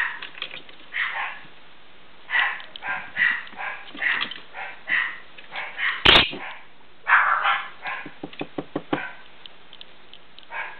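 Rainbow lorikeet chattering and squawking in short raspy calls while it tussles with a hand. A sharp knock comes about six seconds in, and a quick run of small taps follows near nine seconds.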